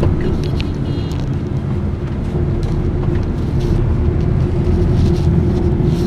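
Engine drone and road rumble heard inside a moving van, with a steady hum and a few faint clicks.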